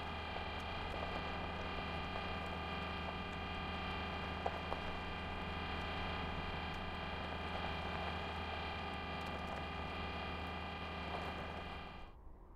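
A steady droning hum made of several held tones, with a few faint ticks, that cuts off suddenly near the end.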